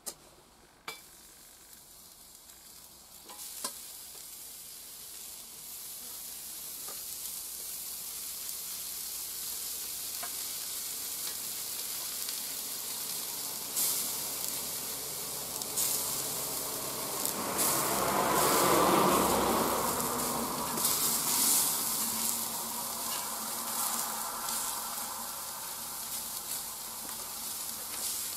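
Sausages, onion slices and cherry tomato halves sizzling on a hot steel hot plate. After a few quieter seconds with some sharp clicks, the sizzle builds and swells loudest about two-thirds of the way through, as more food goes onto the plate.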